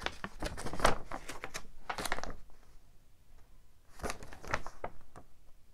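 Folded paper poster being handled and opened out: a run of quick, irregular crinkles and crackles of paper, a short pause, then a few more crackles about four seconds in.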